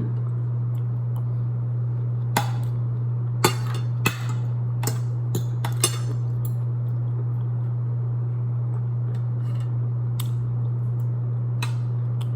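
Cutlery clinking and scraping against a plate during eating, in short scattered clicks, over a steady low electrical-sounding hum.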